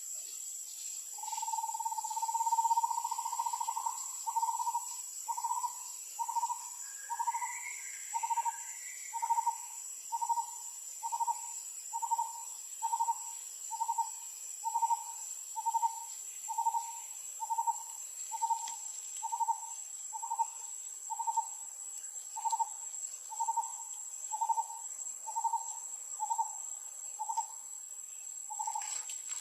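A hooting call: one note held for a few seconds, then repeated as short, even hoots about once a second, over a steady high-pitched insect drone.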